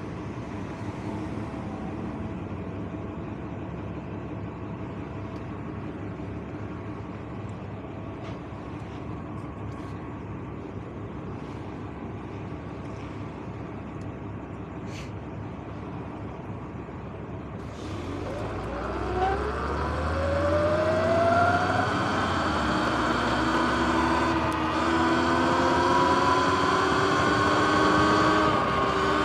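Steady low hum of traffic and a city bus idling alongside. About two-thirds of the way in, a Sur-Ron electric dirt bike pulls away: its whine rises in pitch as it speeds up, then levels off, over wind and tyre noise.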